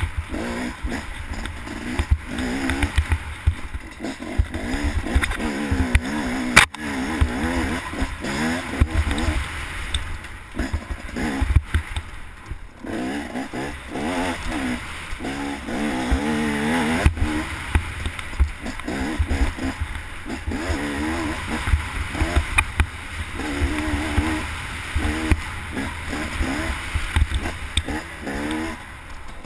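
Off-road dirt bike engine revving up and down over and over as it rides a rough forest trail, with wind rumbling on the microphone and knocks from the bumps, one sharp knock about six and a half seconds in.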